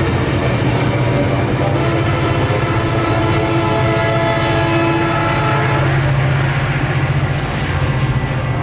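Diesel-hauled train passing close by, running loudly and steadily, with a low engine drone and a steady whine.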